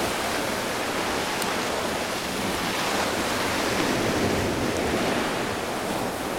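Sea waves surging and foaming between large shoreline boulders: a steady rush of surf that swells slightly midway.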